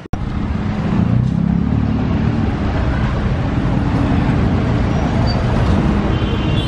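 Street traffic: a steady, loud engine rumble from nearby road vehicles, with a few faint high-pitched tones near the end.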